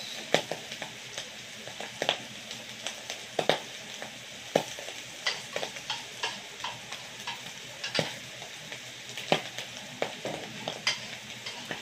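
Sliced mushrooms and onions frying in oil in a pan, with a steady sizzle and scattered sharp clicks and pops throughout.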